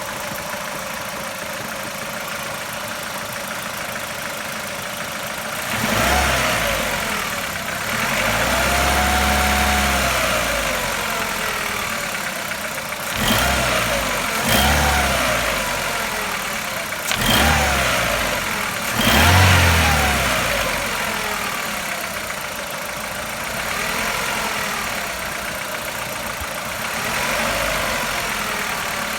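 Chevrolet Lacetti 1.6 four-cylinder petrol engine, hot, idling and then revved repeatedly. There is one held rev about eight seconds in and quick throttle blips around a quarter and two thirds of the way through, with softer ones near the end, each settling back to idle. The owner presents it as a knock that shows when the engine is hot.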